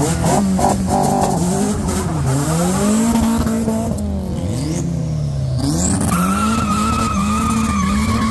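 A car engine revving, its pitch rising and falling several times. About six seconds in, a high wavering squeal joins it and holds to the end.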